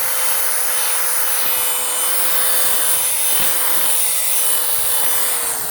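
Corded electric drill with a scrub brush running on car carpet, its motor whining at one steady pitch over the brush's scrubbing noise; near the end the whine falls in pitch as the drill spins down.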